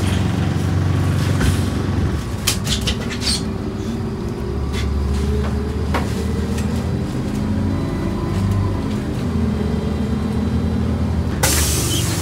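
City bus interior: steady low drone of the bus running, with scattered clicks and rattles. Near the end comes a sudden loud hiss of compressed air, the air brakes or pneumatic doors releasing as the bus stops.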